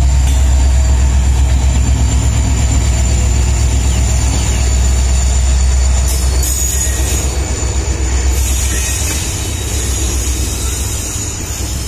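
Diesel-hauled passenger train passing close by, with a loud, steady low rumble. It eases off slightly after about six seconds as the locomotive gives way to the coaches rolling past.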